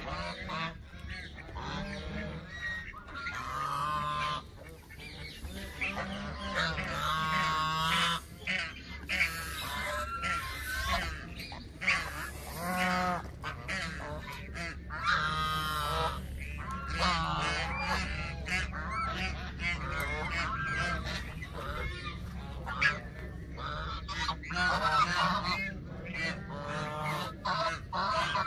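A flock of geese, Canada geese among them, honking over and over, several birds calling over one another, under a steady low hum.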